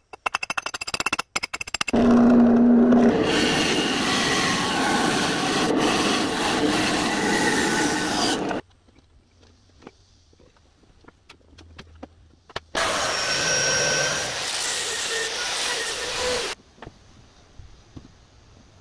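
A quick run of hammer taps on steel, then a power sanding or grinding machine working a knife. Between the two grinding passes, and after them, there are quiet stretches with small clicks of handling as wooden handle scales are fitted.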